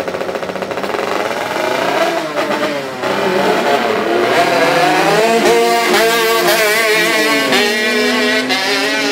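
Racing kart engine and a Nissan car's engine revving hard in a drag-race launch, their pitch climbing and dropping several times as they pull away through the gears.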